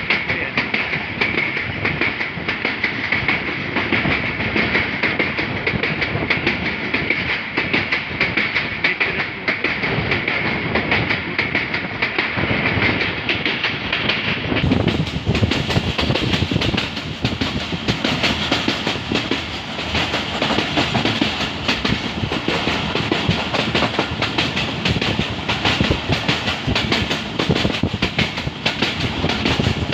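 Passenger train running along the track, heard from aboard: a steady rumble with the wheels clattering over the rail joints. A high-pitched hiss rides over it for the first half and then fades.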